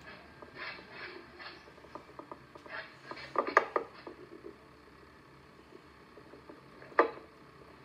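Lop-eared rabbit moving about in straw bedding close to the camera: crackly rustling and crunching of straw, with a cluster of louder knocks about three and a half seconds in and one sharp knock about seven seconds in.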